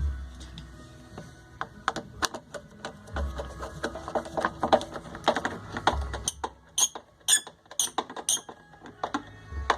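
Music with a deep pulse about every three seconds, over many sharp clicks and clatters, with a quick run of high ticks in the second half.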